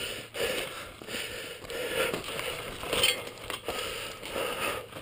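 Crunching and scuffing of footsteps on a dry dirt trail, with rustling and a few light clicks as a mountain bike is handled.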